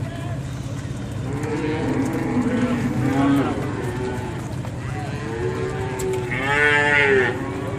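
A herd of cattle mooing, with several calls overlapping, and one loud, long moo about six seconds in. A steady low hum runs underneath.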